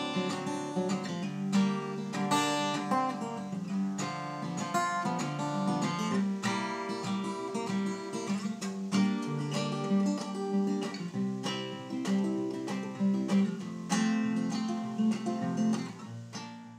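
Background music: a strummed acoustic guitar that cuts off abruptly near the end.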